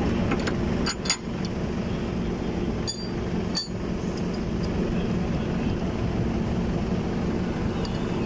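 Steady low machine hum from the forklift lifting a reach truck's battery out on a sling, with a few sharp metallic clinks about one, three and three and a half seconds in.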